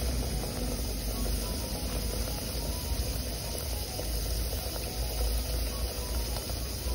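Johnny cake dumpling frying in a pot of oil over a wood fire: a steady sizzle, with insects chirping in the background.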